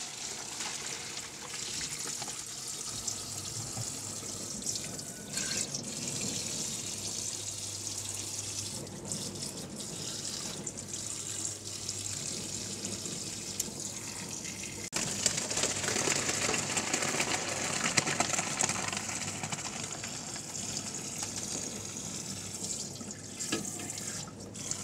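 Kitchen tap running into a plastic colander in the sink, splashing over boiled morel mushrooms as they are rinsed. The stream steadies and grows a little louder about halfway through.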